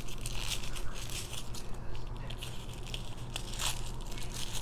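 Paper and cardboard packaging crinkling and rustling in irregular crackles as a hand rummages in a box.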